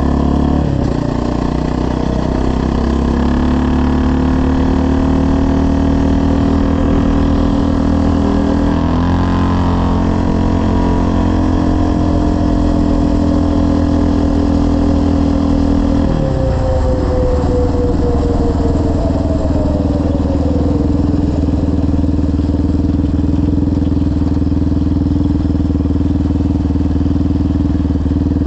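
Yamaha Raptor 700R quad's single-cylinder four-stroke engine through a full CT Racing exhaust, running under load with a gear change about nine seconds in. About sixteen seconds in the throttle comes off and the pitch falls as the quad slows, then settles into a steady lower note.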